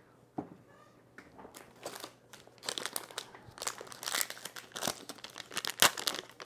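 Plastic packaging crinkling and rustling in irregular crackles as a small accessory is unwrapped by hand, building up about a second and a half in and getting louder toward the end.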